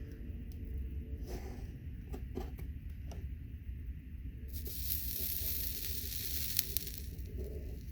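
Flux sizzling as a hot soldering tip melts solder onto an HO scale rail joint: a hiss about two and a half seconds long starting past the middle, after a few light clicks.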